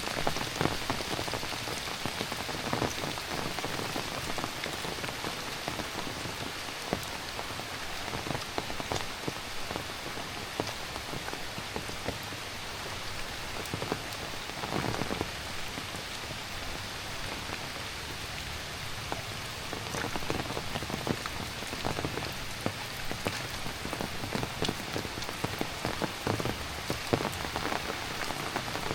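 Heavy rain falling steadily, with many sharp individual drop hits scattered through it.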